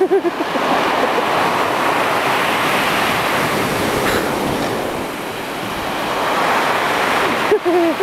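Surf breaking and washing up a pebble beach: a continuous rush of water that eases about five seconds in and then swells again.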